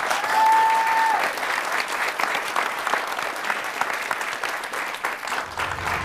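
Audience applauding, loudest near the start, with a steady high whistle-like tone held for about a second early on. Music begins to come in just before the end.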